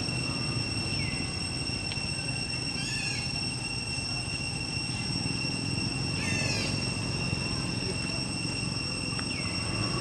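Forest ambience: a steady, high-pitched insect drone over a low rumble, with a few short calls that sweep in pitch, the clearest about three seconds in and again midway.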